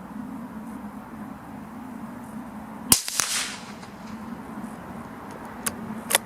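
A single shot from a CZ 457 .22LR bolt-action rifle firing a CCI Velocitor high-velocity hollow point, a sharp crack with a brief ringing tail about three seconds in. A few sharp clicks follow near the end.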